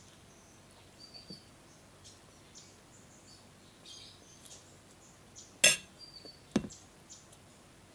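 Two sharp clinks of a metal utensil against a plate, a little under a second apart, over faint bird chirps in the background.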